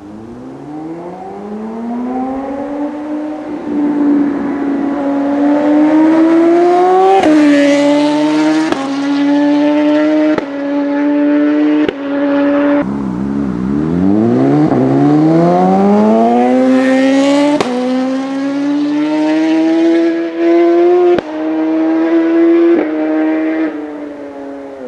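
BMW S1000RR inline-four superbike running through an aftermarket Austin Racing V3 slip-on exhaust, accelerating hard twice. Each run climbs in pitch, then goes up through several gears in quick succession, each shift a sudden short drop in pitch. The revs fall back about halfway through before the second run.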